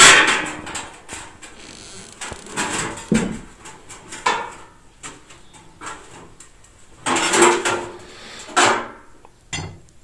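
Hammer and chisel knocking out brick and mortar to cut pockets for crack-stitching bars in a brick wall: irregular sharp knocks, the loudest right at the start, with a longer rough stretch about seven seconds in.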